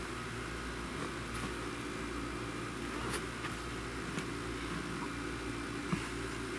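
Steady low hum and hiss of room noise, with a few faint, short clicks as patent leather block-heel ankle boots shift on carpet.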